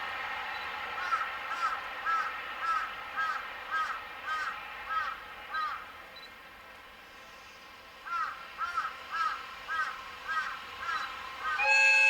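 A crow cawing in two runs of about nine calls each, roughly two caws a second, with a pause of about two seconds between the runs, over a steady faint hum. Just before the end a loud steady sound of several tones at once starts.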